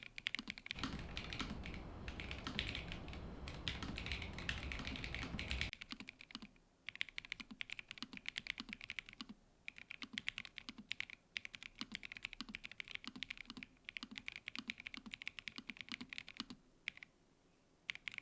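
Fast typing on a Nuphy NOS75 low-profile mechanical keyboard with Gateron N1 Nano switches, aluminium plate and all foam removed: rapid, crisp keystroke clicks with brief pauses between runs. A low rumble sits underneath from about a second in until about six seconds.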